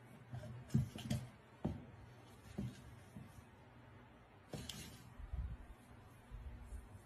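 Faint light thumps and scuffs of a kitten pouncing on a cardboard tube and shoving it across carpet tiles: a handful of soft knocks in the first few seconds, another about four and a half seconds in, then a low rumble as the tube moves along the carpet.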